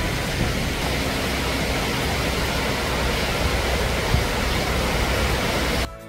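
Steady, even rushing noise of the open air, with no music over it.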